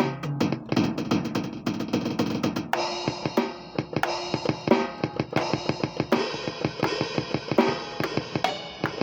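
Drum kit played freely: a rapid run of strikes on the drums under steady cymbal wash, the pattern changing about three seconds in.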